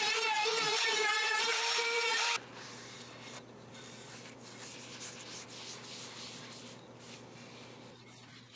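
Palm router with a roundover bit running at high speed, its whine wavering as it cuts along the board's edge, then stopping suddenly about two seconds in. After that comes faint rubbing as mineral oil is wiped into a walnut board with a gloved hand and shop towel, over a low steady hum.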